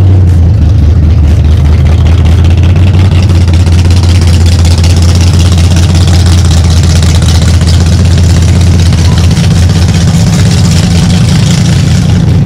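Loud car engine idling steadily, a deep low rumble with no revving.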